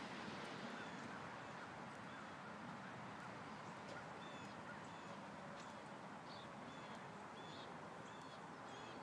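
Faint steady outdoor background hiss, with birds chirping briefly many times from about three and a half seconds in.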